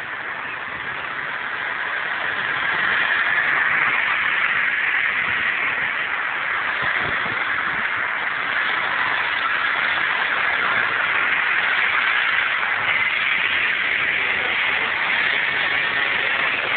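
Motorbike engine running as the bike approaches, getting louder about two to three seconds in and staying up. Through the low-quality recording it is heard as a coarse, steady hiss.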